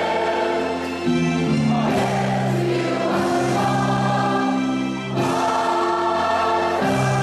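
A large mixed choir of students and teachers singing a school anthem in held, chordal notes, with brief breaks between phrases about a second and five seconds in.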